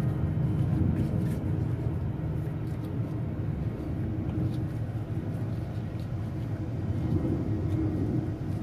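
A low, steady rumble with a few faint clicks.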